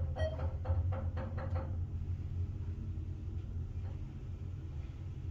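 Elevator ride: a steady low hum throughout, with a short electronic beep about a quarter of a second in and a quick run of light clicks and knocks over the first two seconds.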